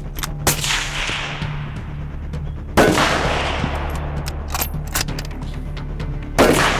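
Three rifle shots, the first fainter, spaced about two and then three and a half seconds apart. Each trails off in a long echo across the range.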